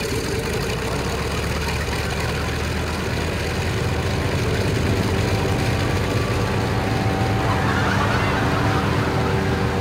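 Engine-driven giant propeller leaf blower, a caged propeller on an airboat-like frame, running with a steady low engine drone that grows a little louder about halfway through. Near the end a rush of higher, hissing noise joins it.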